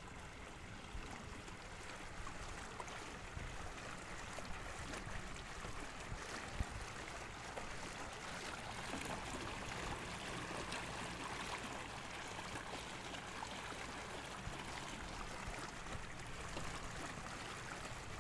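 Water rushing and splashing along the hull of a small electric boat under way on open water. A single sharp knock comes about six and a half seconds in.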